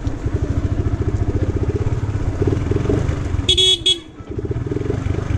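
Yamaha R15 V2's single-cylinder four-stroke engine with a loud exhaust, rolling at low speed with a rapid, even exhaust beat. About three and a half seconds in, a horn honks briefly twice in quick succession, and the exhaust dips for a moment just after.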